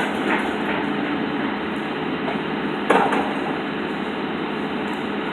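Building demolition: a steady engine-like hum throughout, with one sharp bang of breaking or falling material about three seconds in.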